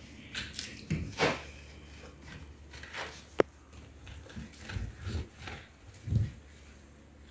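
Sponge scrubbing the soapy plastic shell of a doghouse: irregular rubbing strokes, with a few dull knocks and one sharp click a little past three seconds.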